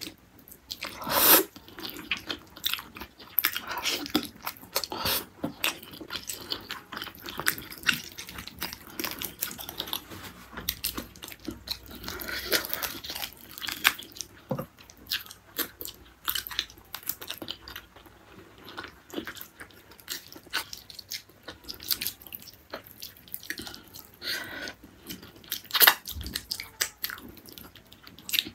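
Close-up chewing and biting of gulai tunjang, beef tendon cooked in curry, eaten by hand off the bone. Irregular wet mouth clicks and smacks run throughout, with a louder bite about a second in and another near the end.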